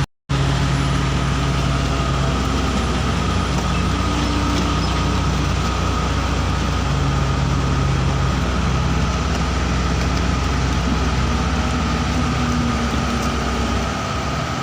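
Heavy diesel engine running steadily at an even pitch, with a brief dropout just after the start.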